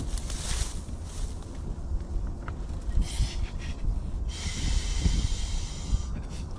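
Air hissing in several pushes, the last about two seconds long, as a packraft is topped up through its inflation valve, over steady wind rumble on the microphone.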